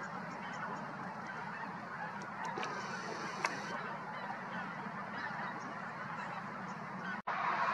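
A large flock of waterbirds calling all together in a continuous clamour over the wetland. The sound drops out for an instant about seven seconds in and comes back louder.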